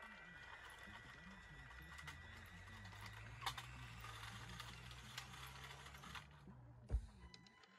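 Small electric drive motor of a radio-controlled toy construction machine running with a steady low hum, with scattered light clicks and ticks. The hum stops about six and a half seconds in, and a single thump follows near the end.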